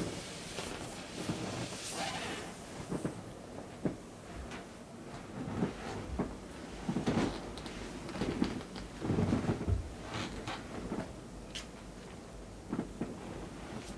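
Inflatable vinyl pool toy being handled and pressed by furry costume paws: irregular rubbing and soft bumps, with no pop.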